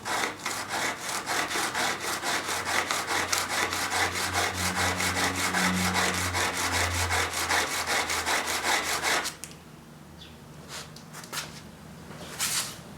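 Chisel being sharpened by hand on a coarse diamond stone wetted with soapy water: the steel bevel grinds in quick, even back-and-forth strokes, about four or five a second, then stops suddenly about nine seconds in. A light knock or two follows near the end.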